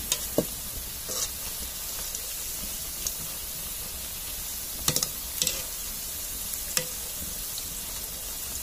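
Battered cauliflower florets deep-frying in hot oil with a steady sizzle. A metal slotted spatula stirs them, scraping and clinking against the pan several times, with a quick cluster of clinks about five seconds in.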